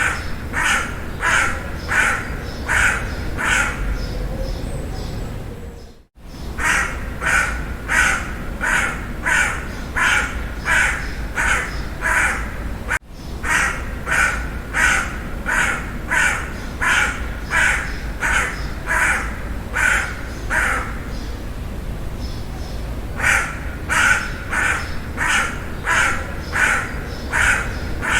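Crow cawing in long runs of rapid, evenly spaced caws, about one and a half to two a second, over a steady low background hum. The sound cuts out abruptly for a moment about six seconds in, and the cawing pauses for a couple of seconds past the twenty-second mark before resuming.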